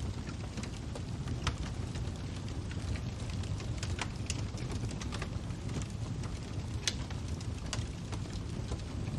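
Wood fire crackling: a steady low rumble of the flames with irregular sharp pops and snaps, the loudest pop about seven seconds in.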